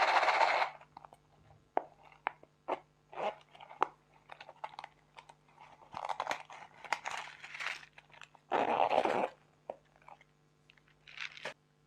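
Slime being squeezed and worked by hand, giving sticky clicks, pops and crackling squelches in irregular bursts. The longest, loudest bursts come at the start and again about nine seconds in, and the sound stops abruptly just before the end.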